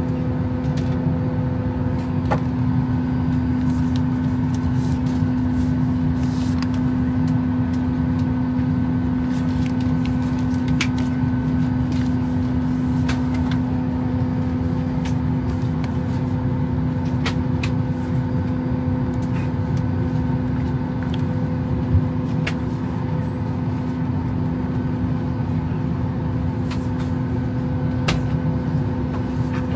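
Steady cabin drone of a Boeing 737 airliner on the ground before takeoff, a constant low hum with fainter steady tones above it. Light clicks and paper rustles of a seat-pocket card and magazine being handled run through it, with one sharper knock about three quarters of the way in.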